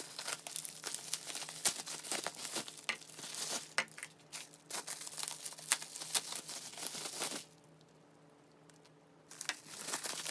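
Bubble wrap crinkling and rustling as hands pull it off plastic slime tubs, a dense run of irregular crackles. It stops about three-quarters through and starts again briefly near the end.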